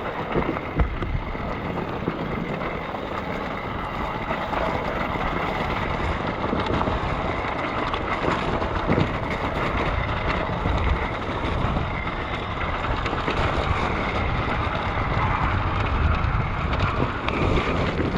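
Enduro motorcycle engine running steadily as the bike climbs over rocks, mixed with wind buffeting the microphone.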